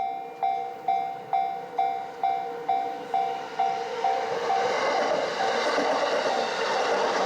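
Japanese level-crossing alarm ringing its repeated electronic 'kan-kan' tone, about two strokes a second. About four seconds in, the running noise of a passing Yamanote Line train rises and all but buries the bell.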